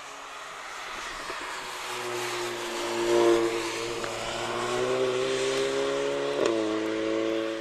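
A hatchback's engine accelerating hard past on a wet track, with tyre spray hissing underneath. The engine note climbs, is loudest as the car goes by about three seconds in, and drops suddenly near the end at an upshift before pulling on.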